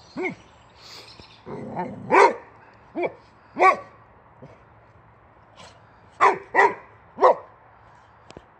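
Boxer dog barking at a wheelbarrow tyre in short, sharp barks, about seven in all. One comes near the start, then three close together, a pause of a couple of seconds, and three more.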